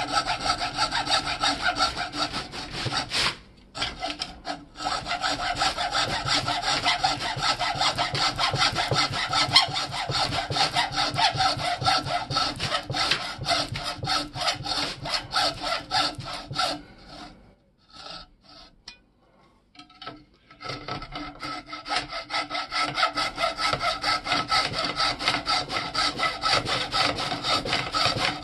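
Hacksaw blade sawing through the rusty shaft of an antique hammer axe, in fast, steady back-and-forth strokes. There is a short break about three seconds in and a longer pause of about three seconds a little past the middle.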